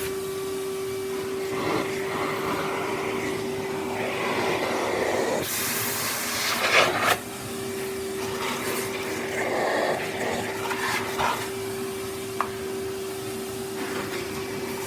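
Vacuum cleaner running with a steady motor hum, its suction rush changing as the nozzle moves. The rush grows louder about six to seven seconds in, and there is a short click near twelve seconds.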